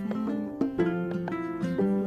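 Background music: a light melody of short plucked-string notes following one another quickly.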